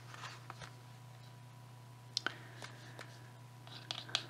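Faint clicks and taps of a paintbrush working in a pan of a metallic watercolour palette, a few near the middle and a small cluster near the end, over a low steady hum.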